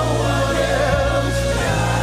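Live gospel worship music: a choir singing wavering, drawn-out notes over steady held chords.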